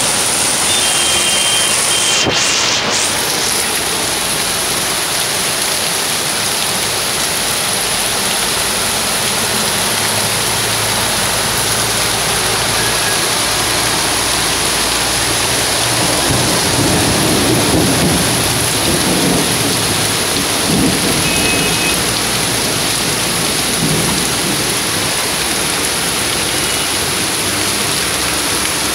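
Torrential rain falling hard and steadily, a dense hiss without a break. A low rumble swells and fades several times in the second half.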